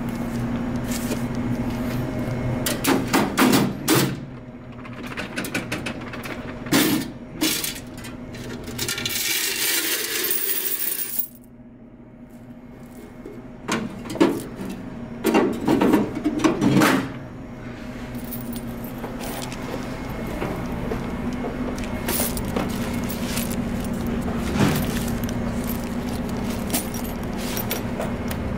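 Coins clattering and jingling in several bursts as a vending machine's coin box is pulled and emptied into a zippered bank bag, over a steady low hum.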